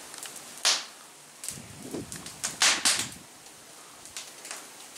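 Wood campfire crackling and popping: two loud, sharp pops about two seconds apart, the first just under a second in, with fainter ticks scattered around them.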